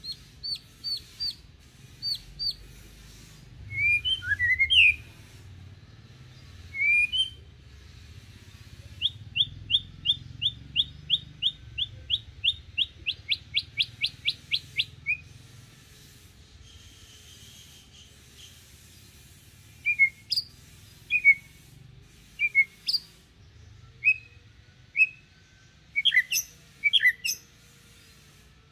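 White-rumped shama (murai batu) singing calmly: clear whistled notes and glides, with a run of about twenty quick rising notes that speed up midway through. It is an unforced song rather than an aggressive, pressing one, used as bait song to draw juvenile shamas into singing.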